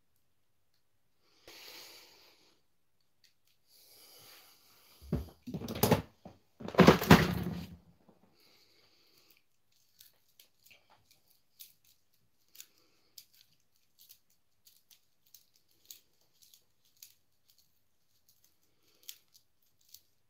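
Close handling of a fly reel and its clear plastic packaging: rustling and crinkling, loudest about five to eight seconds in, then scattered light clicks roughly once a second.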